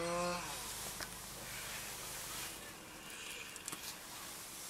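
Chainsaw running at full throttle, cutting through sea ice, stops about half a second in. After it cuts off there is only faint outdoor background with a few light knocks.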